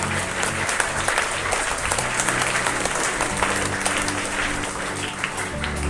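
Assembled schoolchildren and staff applauding: a dense, steady patter of many hands clapping, with background music underneath.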